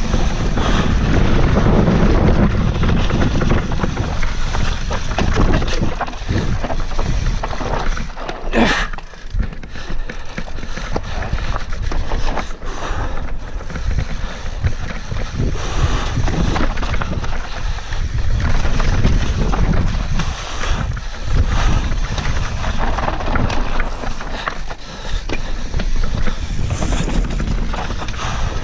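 YT Capra 29 enduro mountain bike descending a dirt forest trail at speed: wind buffeting the action-camera microphone over the rumble of tyres on dirt and the rattle of the bike over bumps, with a sharp knock about nine seconds in.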